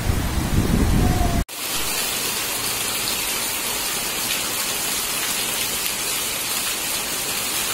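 Heavy rain falling, a steady even hiss. For about the first second and a half a loud low rumble lies over it, then it breaks off abruptly and only the rain hiss goes on.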